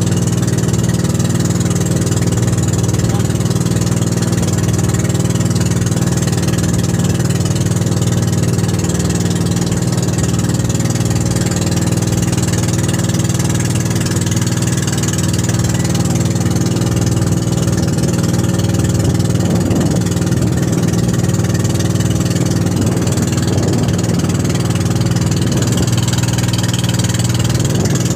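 Engine of a motorised outrigger boat running steadily underway, a constant low drone that holds the same pitch and level throughout, with water and wind hiss over it.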